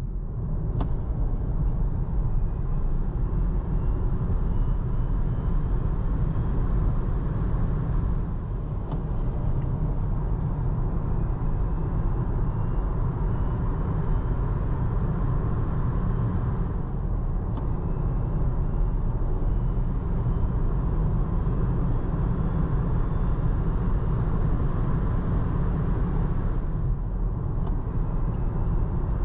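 Kia e-Soul's 204 hp electric drive motor accelerating, its thin whine rising slowly in pitch over several seconds. This happens four times, each run starting again low after a brief dip. Under it runs a steady rumble of tyre and road noise.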